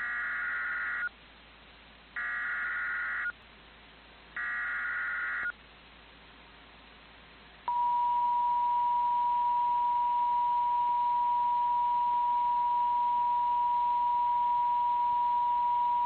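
Emergency Alert System SAME header: three bursts of about a second each of screechy digital data. About eight seconds in, the NOAA Weather Radio attention tone starts, a single steady tone that holds. Together they signal that a broadcast warning message is about to follow.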